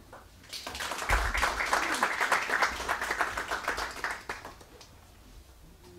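Audience applauding: dense clapping that starts about half a second in and dies away after about four seconds.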